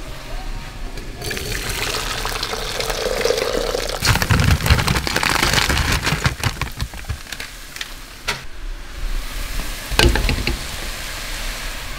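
Water poured into a cooking pan, its filling tone rising slightly, then a louder, rougher stretch of splashing and sputtering. Two sharp knocks of cookware follow near the end.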